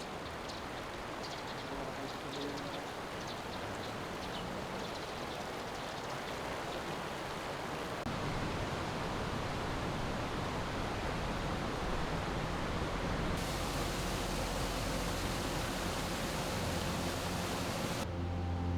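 Steady outdoor rushing noise, like flowing water, with light ticks in the first few seconds; it grows louder about eight seconds in, brighter about five seconds later, and cuts off abruptly just before the end.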